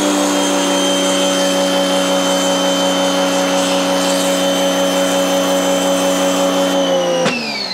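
Giraffe Tools Grandfalls 2200 PSI wall-mounted electric pressure washer running with the gun trigger held: a pretty loud, steady motor-and-pump whine. Near the end it shuts off and winds down with a falling whine.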